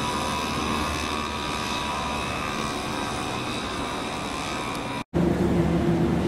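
An aircraft passing overhead: a steady engine drone with a high whine that slowly falls in pitch. About five seconds in it breaks off abruptly, and a louder, lower rumble with a deep hum takes over.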